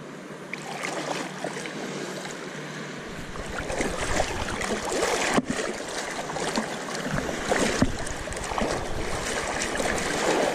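Shallow seawater lapping and splashing close to the microphone, with some wind rumble, growing louder about three seconds in.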